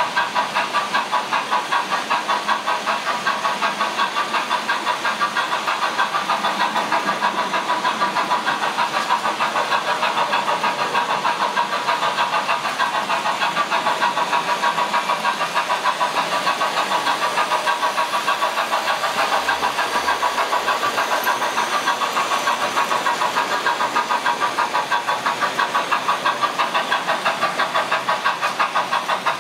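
Märklin H0 model trains running on the layout's metal track: a steady, even, rhythmic clatter of about four or five beats a second.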